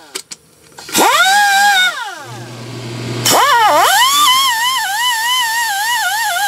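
Power tool spinning a small wire wheel brush against a truck's ground-strap contact to scrub off corrosion: its whine spins up about a second in, winds down near two seconds, then runs again from about three seconds in with a wavering pitch before winding down at the end. A steady low hum joins about two seconds in.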